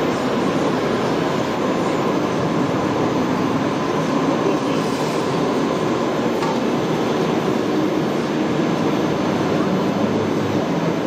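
Steady, even background din with no distinct events, and no clear motor or crane sound standing out from it.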